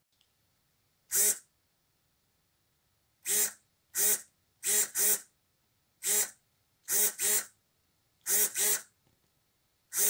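Digital RC servos, a Power HD Storm 7 brushless and an SPT5410LV, snapping their output horns from end to end. Each sweep is a short, high-pitched buzz of motor and gear train, about ten in all, some in quick back-and-forth pairs, with quiet pauses between them.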